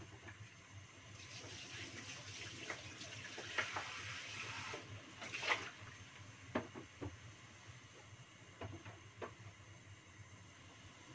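Kitchen tap running for about four seconds, then scattered light clicks and knocks.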